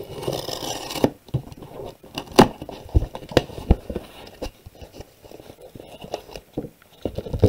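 Tape on a cardboard shipping box being slit open with a scratchy rasp, then the cardboard flaps pulled back and handled, with a run of sharp knocks and rustles.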